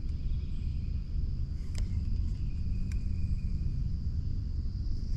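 Steady high-pitched insect chorus over a constant low rumble, with a couple of faint clicks.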